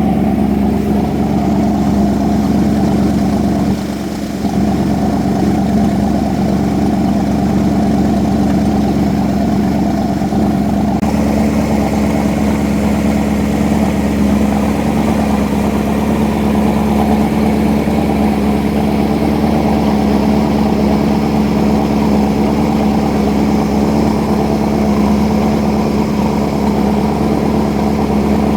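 Boat engine running steadily at cruising speed: a constant, even drone with no change in pitch.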